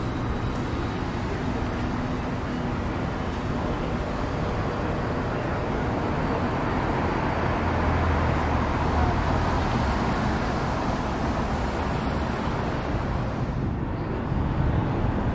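City street traffic noise: a steady wash of passing cars, with a vehicle going by near the middle.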